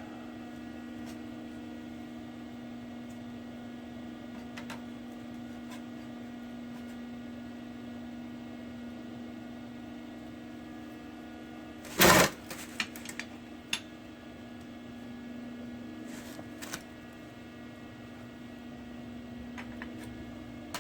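Steady electrical hum, with one loud, short burst about twelve seconds in followed by a few light clicks, as metal parts are handled.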